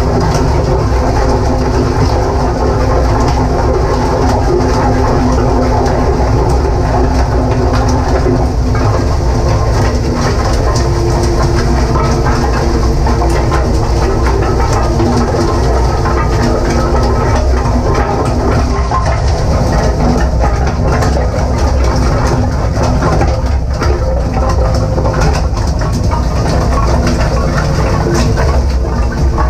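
Shredder-granulator combination running under load, its rotor chewing solid plastic purge lumps. Irregular knocks and cracks of the knives biting the plastic sit over a steady hum of the motors and gear drive.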